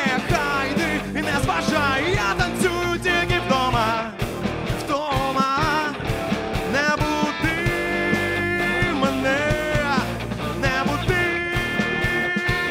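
Live rock band playing an instrumental passage: an electric guitar lead of held notes that waver and bend up and down in pitch, over bass guitar and drums.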